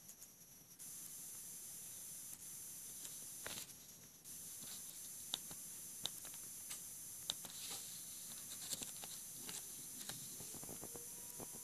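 Faint, scattered clicks and taps from fingers pressing the keypad buttons and handling a Samsung Galaxy Golden flip phone, over a steady high hiss.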